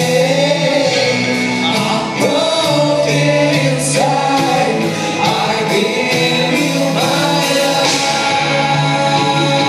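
Live worship band with drums and guitars playing a slow worship song while the congregation sings along in long held notes.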